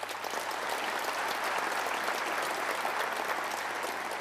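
Audience applauding in a large hall, a dense steady clapping that eases off slightly near the end.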